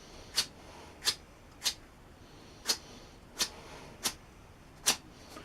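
Hand-sanding a drill handle: seven short rubbing strokes of abrasive paper, about two-thirds of a second apart.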